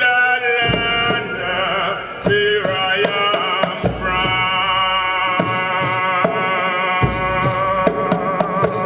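A man singing and chanting into a microphone over live hand drumming and shakers, holding long wavering notes through the second half, with the drums striking a steady beat.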